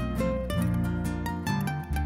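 Nylon-string classical guitar playing a plucked instrumental introduction to a hymn: a melody of single picked notes over ringing bass notes, before the voice comes in.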